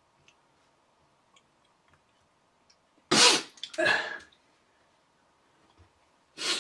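A man clearing his throat and sniffling close to the microphone: two loud bursts about three and four seconds in, and a shorter one near the end.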